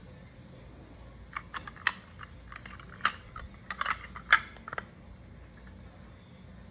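Plastic nesting cups clicking and knocking together as they are handled and fitted into one another. There is an irregular run of sharp clicks from about a second and a half in to nearly five seconds, the loudest just past four seconds.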